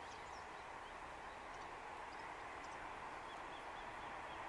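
Quiet open-air ambience: a steady faint hiss that grows slightly louder, with scattered faint bird chirps.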